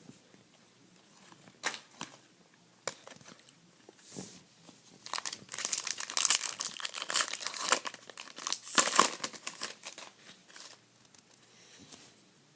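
A trading-card pack wrapper being torn open and crinkled by hand, a few light handling clicks first, then a stretch of dense crackling that tapers off.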